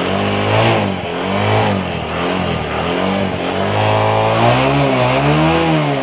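Bajaj Discover single-cylinder four-stroke motorcycle engine, running on LPG instead of petrol, being revved repeatedly: its pitch rises and falls about five times.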